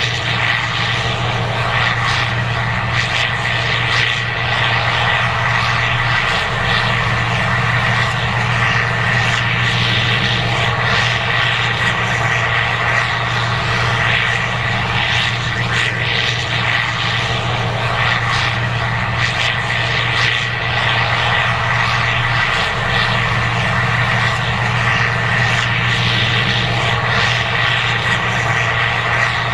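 Case IH 2188 Axial-Flow combine running steadily under load while harvesting corn: a constant engine drone with a steady high whine from the machinery.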